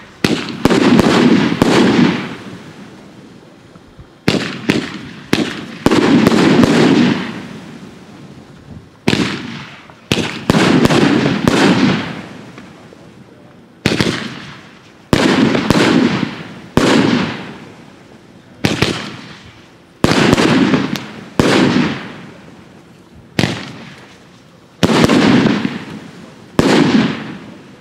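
Category 3 firework candle with silver tails and silver glitter firing shot after shot, about one every two seconds: each a sharp pop and burst followed by a crackling hiss that fades over a second or two.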